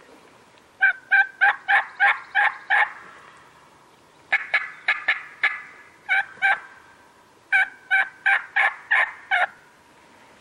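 Turkey yelping: four runs of sharp, evenly spaced hen-style yelps, about three a second, of seven, five, two and seven notes.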